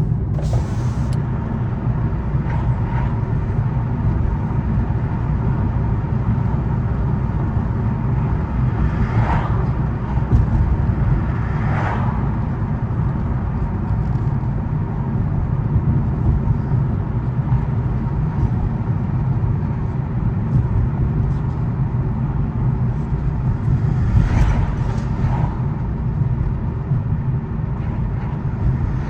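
Cabin sound of a 2014 Fiat 500L on the road: a steady low rumble of engine and tyre noise, with a few brief swells of higher noise, about a third of the way in, again shortly after, and once more near the end.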